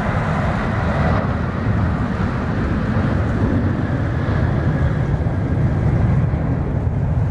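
Boeing 747 freighter's jet engines running at high power on the runway: a loud, steady deep rumble, with wind buffeting the microphone. A faint whine above the rumble fades out about a second in.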